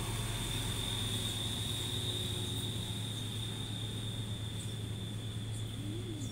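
Steady background noise: a high-pitched whine held on one note over a low hum.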